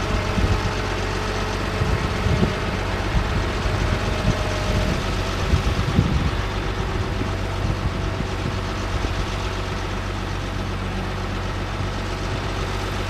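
A GMC C7500 truck's engine running steadily at idle, with a few short knocks in roughly the first six seconds.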